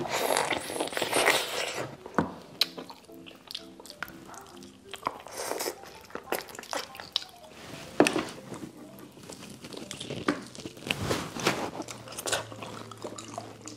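Close-up eating sounds of a person biting and chewing braised pork feet off the bone, with many sharp mouth clicks and a louder burst of biting in the first couple of seconds. The pork skin is soft and tender.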